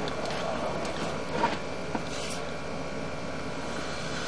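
Sewer inspection camera's push cable being pulled back through the drain line, a steady rubbing noise with one short knock about one and a half seconds in and a fainter tick just after.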